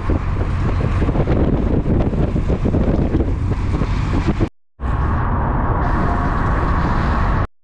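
Wind rushing and buffeting over a camera microphone held out of a moving car's window, over the car's road and engine noise. The sound cuts out completely for a moment about two-thirds of the way through.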